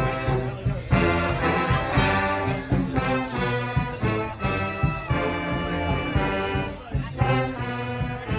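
A street brass band playing live, trumpets and trombones sounding together over a steady beat, with sharp accents about once a second.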